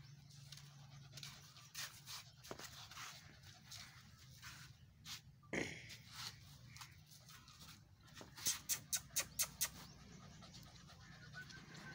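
A small dog panting with its tongue out, in short breaths that come and go. The loudest part is a quick run of about seven pants in just over a second, a little past two-thirds of the way in. About halfway through there is one short sound that falls in pitch.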